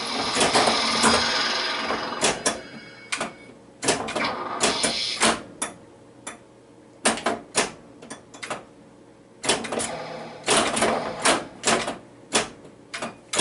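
Flash Gordon pinball machine in play: sharp clacks of flippers, bumpers and targets firing as the ball is struck. They come in busy clusters, with a quieter stretch of only a few isolated clicks in the middle.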